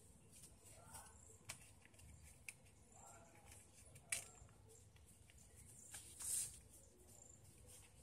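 Faint crinkling and rustling of a sheet of paper being folded by hand, with a few short sharp crackles and a louder rustle about six seconds in.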